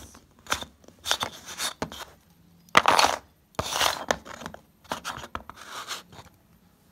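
A small plastic toy figure is scraped and rubbed against loose flat craft pieces in a few irregular bursts, the loudest about three seconds in.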